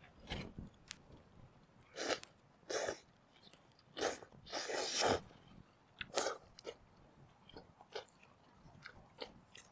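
A person chewing and biting food close to the microphone, in short irregular bursts of mouth noise.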